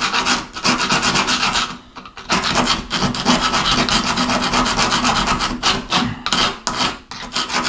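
Hand grout saw rasping in quick strokes along the grout joint in a tiled shower corner, cutting out old cracked grout. It stops briefly about two seconds in, and the strokes become more broken near the end.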